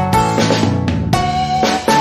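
Upbeat background music: a bright pitched melody over a steady drum beat.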